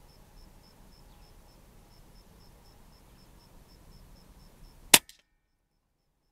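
A single sharp shot from an Air Arms S510 air rifle about five seconds in, followed at once by a fainter click. Before it only faint background ticking; the sound cuts off suddenly just after the shot.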